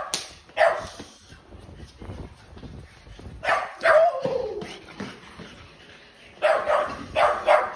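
French bulldog barking at another dog in sharp bursts: single barks at the start, two more a little past halfway with the second trailing into a falling whine, then a quick run of four barks near the end.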